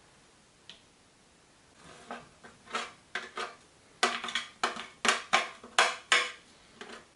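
Metal box grater scraping pieces of a crumbly baked loaf into crumbs. A run of scraping strokes, a few soft ones first, then louder ones about two a second. Each stroke builds and cuts off sharply.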